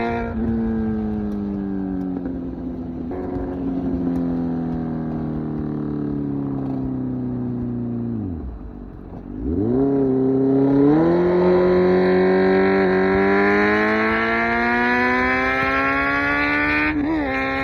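Kawasaki Z900's 948 cc inline-four through an SC Project exhaust. The engine note falls slowly as the bike eases off, drops away briefly about eight to nine seconds in, then climbs steadily under acceleration. A quick gear change comes near the end.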